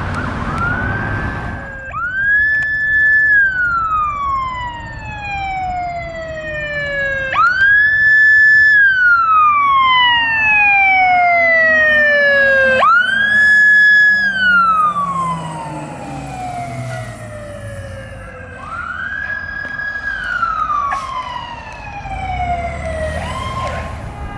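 Fire truck siren wailing in four long cycles, each a quick rise in pitch, a short hold at the top, then a slow fall. The middle cycles are the loudest.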